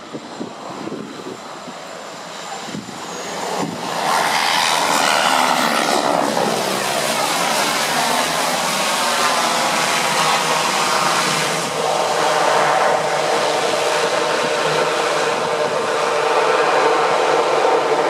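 Cessna 208B Grand Caravan's PT6A turboprop on its landing roll: the engine and propeller noise rises sharply about four seconds in and stays loud and steady, its pitch shifting for a couple of seconds as the aircraft passes.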